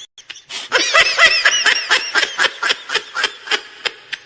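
A meme laughing sound effect: a fast, high-pitched snickering laugh of short repeated syllables, about six a second, which starts after a brief gap and trails off more quietly toward the end.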